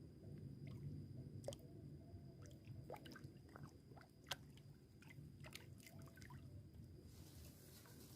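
Near silence: a faint low rumble with scattered small clicks and ticks.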